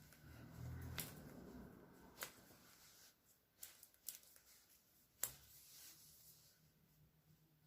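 Several faint, sharp cracks from neck and shoulder joints being manipulated, spaced a second or so apart, the loudest about five seconds in.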